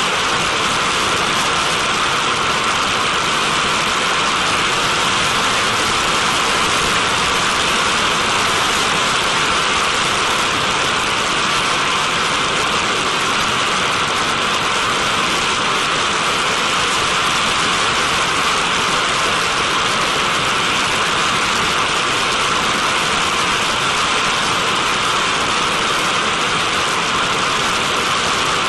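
A steady, even rushing noise that does not change, strongest in the upper-middle range and light in the bass.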